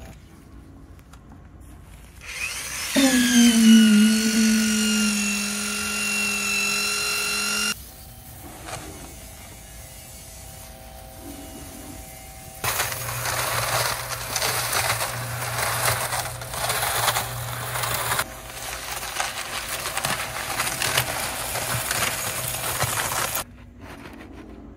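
A motor whines steadily for about five seconds, its pitch dropping slightly as it settles, then stops. After a pause, a pressure washer sprays water into a cement mixer drum, a loud steady hiss over a low motor hum that runs about ten seconds and cuts off near the end.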